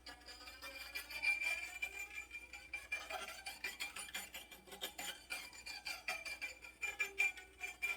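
Guzheng played with experimental effect techniques: quick rasping, scraping strokes and bright clinking hits on the strings over a steady high ringing note.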